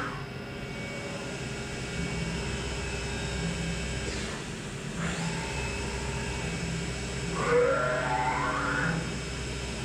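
Bridgeport VMC 500/16 vertical machining centre running a test program: a steady machine hum with several steady tones, and the axis drives whining through rapid traverse moves. The loudest move, about seven and a half seconds in, is a whine that rises sharply in pitch and then falls away.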